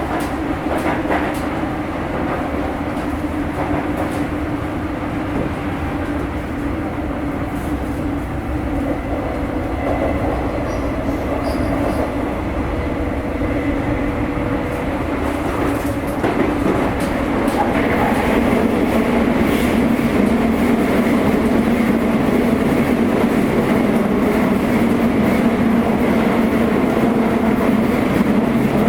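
Interior running noise of a Sotetsu 8000 series electric train's motor car: steady wheel-on-rail noise from the moving train, growing louder about two-thirds of the way through.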